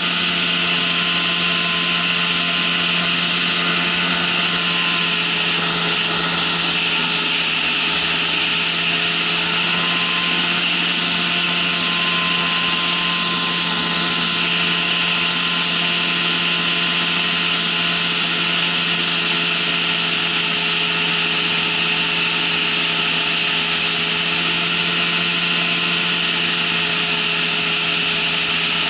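Ultralight trike's engine and pusher propeller running at a steady cruise drone in flight, with a steady rush of wind over the microphone.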